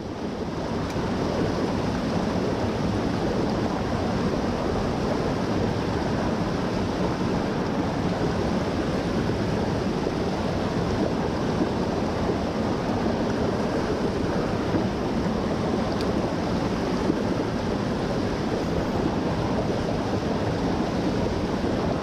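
Mountain stream rushing over rocks: a steady, even sound of flowing water that fades in over the first second or two.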